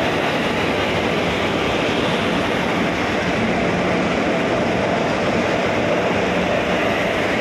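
Twin electric locomotives at the head of a petrol tank-wagon train passing close by, a steady rumble of running gear and wheels on rail with no distinct clicks or horn, the tank wagons following on behind.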